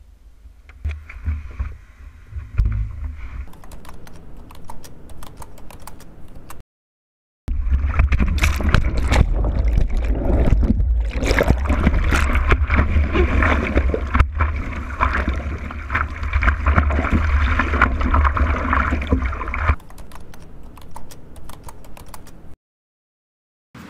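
Water splashing and churning around a board-mounted camera as the surfer paddles through broken waves: a heavy low rumble of water buffeting the camera, with many sharp ticks of spray. It is preceded by a quieter stretch of rumble and ticks, with a brief silence about seven seconds in and again near the end.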